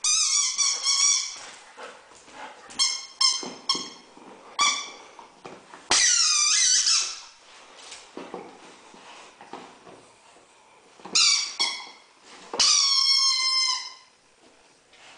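A dog chewing an orange rubber squeaky toy, setting off high-pitched squeaks in bursts: quick runs of short squeaks and a few longer ones that fall in pitch.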